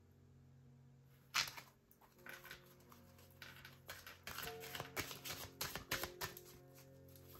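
Tarot cards being shuffled and handled, with a quick, irregular run of crisp clicks and slaps starting about a second in. Soft background music with sustained notes plays underneath.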